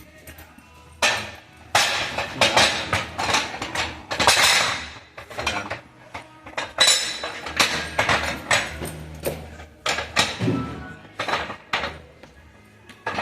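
Steel gearbox parts and tools clanking and clinking against each other with repeated sharp knocks, as the manual gearbox shaft is set up for pressing.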